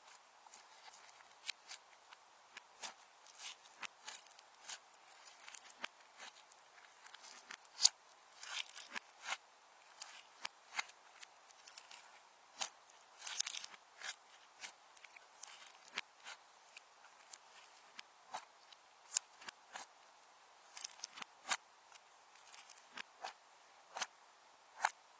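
Slime being worked by hand, giving off irregular sticky clicks, pops and crackles, several a second at times, with a few louder snaps.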